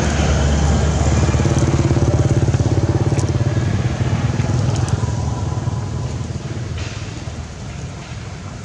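Engine of a passing motor vehicle running with a fast, even pulse, loudest about two seconds in and then slowly fading away.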